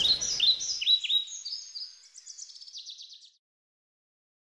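Birds chirping, a quick series of short high chirps, fading out and stopping about three seconds in, while the tail of the background music dies away in the first second.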